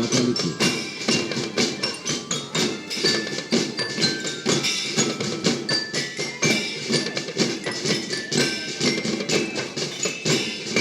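A marching drum band playing: rapid, continuous drum strokes, with mallet bells ringing out a melody of short high notes over them.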